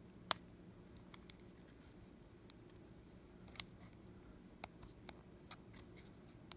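Scattered small, sharp clicks and taps of hand tools on the opened iPhone's parts and connectors, a few at a time. Two stand out as louder, one just after the start and one about three and a half seconds in, over a faint steady hum.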